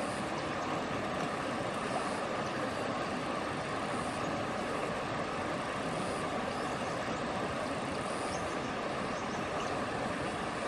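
Shallow river rushing steadily over rocks and riffles.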